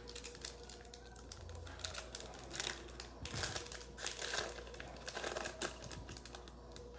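Trading cards and their packaging being handled close by: irregular crinkling and rustling strokes, some a little louder than others.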